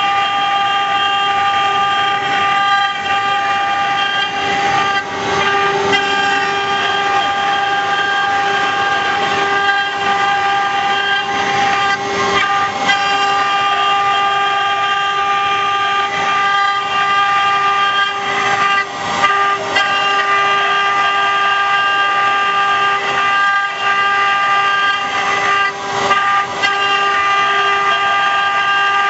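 CNC rotary engraving machine's spindle running with a steady high whine as it carves wood, with a louder stretch of cutting noise about every seven seconds.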